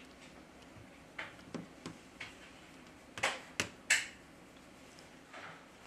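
Light clicks and taps of small tools and phone parts being handled during a smartphone teardown. Three sharper clicks come close together about three to four seconds in.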